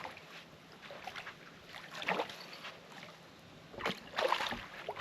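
Water splashing and sloshing in bursts as a hooked carp thrashes at the surface while being landed, a short splash about two seconds in and a longer, louder one near the end.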